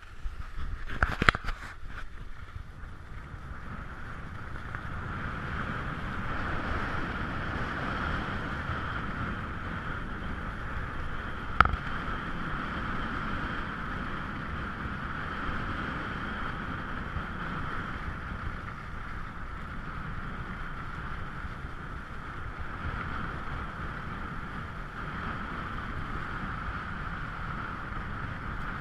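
Skis sliding over packed snow with rushing wind, a steady hiss heard muffled through an action camera's waterproof housing. A few sharp clicks in the first couple of seconds as the camera is handled, and one sharp knock near the middle.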